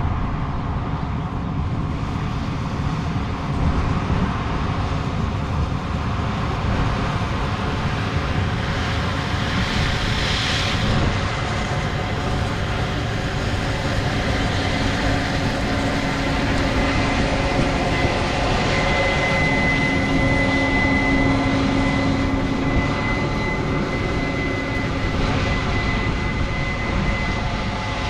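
Farm truck engine running steadily, a low rumble, with a thin steady whine that comes in about two-thirds of the way through.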